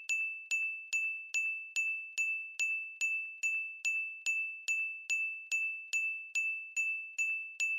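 A single high-pitched chime note struck over and over at an even pace, about two and a half times a second, each ding ringing briefly and fading before the next.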